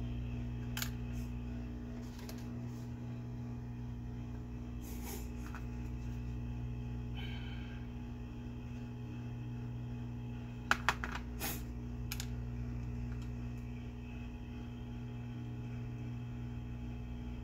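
Hot air rework gun blowing steadily on a circuit-board solder joint, with a low electrical hum. A few light clicks and taps break in, the loudest a quick cluster of three about two-thirds of the way through.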